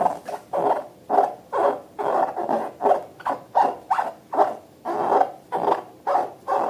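Squishy slime squelching, a quick burst about two or three times a second, as slime is squeezed and worked by hand.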